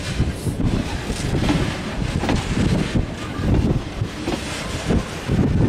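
A freight train of grain hopper wagons rolls past close by. Its steel wheels rumble over the rails with occasional clacks, and wind buffets the microphone.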